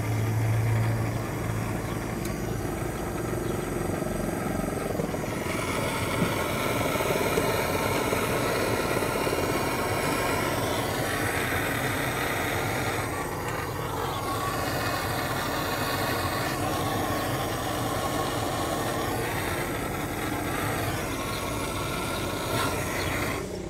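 Handheld gas soldering torch burning with a steady rushing hiss as copper elbow fittings are heated and soldered. A faint whistling tone in it changes pitch a few times as the flame is moved.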